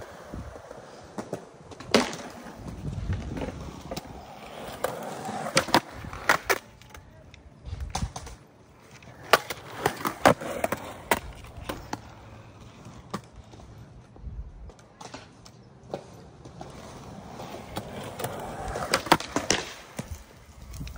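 Skateboard wheels rolling and rumbling on concrete, broken by clusters of sharp clacks as the board strikes the ground and the concrete pad during nose manual attempts.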